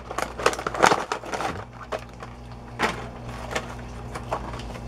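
A cardboard box of minifigures being opened and its clear plastic tray pulled out: crackling and crinkling of cardboard and stiff plastic packaging, busiest in the first second and a half, with another burst of crackles about three seconds in.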